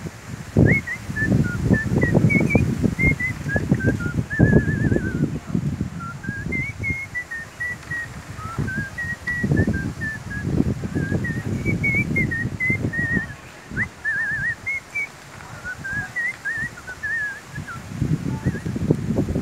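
A songbird singing a long, rambling song of quick high chirps and short trills, with few pauses. Under it, a louder uneven low rumble of wind buffeting the microphone comes and goes.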